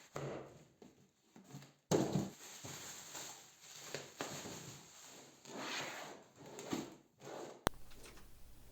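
Hands opening a cardboard box and handling its packaging: irregular rustling, scraping and soft knocks, with abrupt jumps in the sound about two seconds in and near the end.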